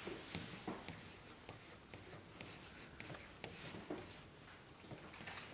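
Writing on a classroom blackboard: a quick series of short, faint scratchy strokes.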